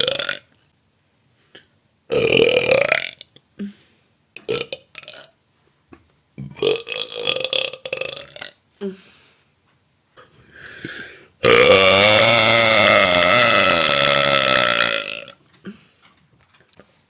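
A woman belching: a few short bursts, then one long, loud belch of about three and a half seconds that drops in pitch as it goes.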